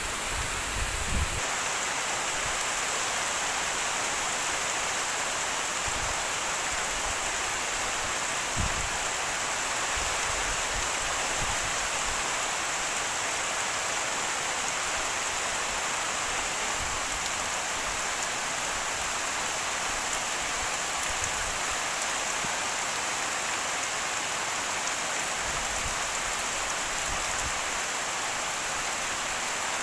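Steady rain falling, an even hiss of many drops, with a couple of brief low thumps about a second in and again near nine seconds.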